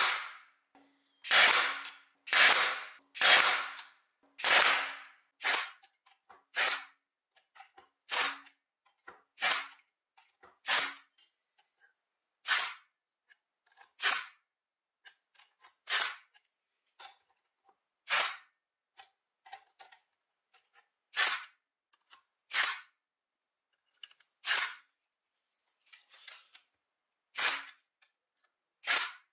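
Parkside PDT 40 G5 pneumatic stapler firing again and again, a sharp crack with each shot, about one shot every one to two seconds. The first few shots are louder and ring on a little longer.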